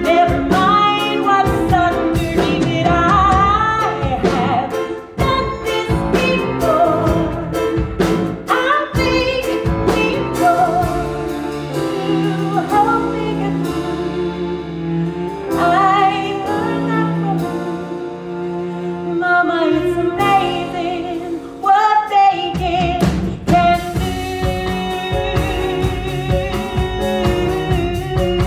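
A woman singing a musical-theatre song over a live band. A little after three-quarters of the way through, the voice stops and the band plays on with a steady beat.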